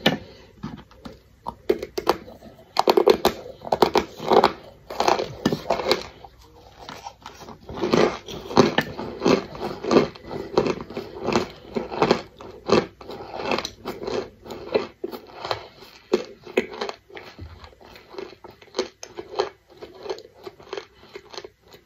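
Close-up chewing and crunching of toasted Argo cornstarch chunks: a dense, irregular run of crisp crunches that thins out near the end.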